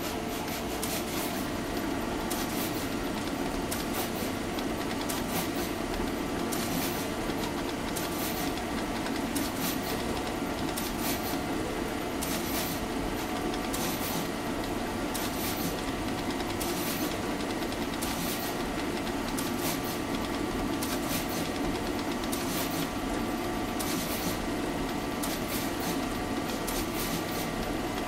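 Hanwha DECAN F2 pick-and-place machine running, a steady mechanical hum with a faint steady whine. Over it come short, sharp hissing bursts, repeating irregularly about once or twice a second as the head works.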